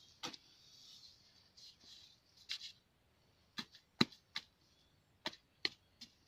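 Long-handled digging spade being driven into dry, hard soil, about eight short, sharp chopping strikes at an uneven pace, the loudest about four seconds in.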